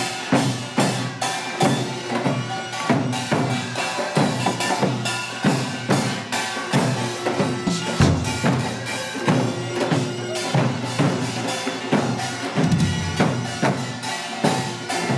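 Korean traditional percussion for a mask dance: buk barrel drums beaten in a steady, driving rhythm of about two to three strokes a second, with other percussion ringing over it.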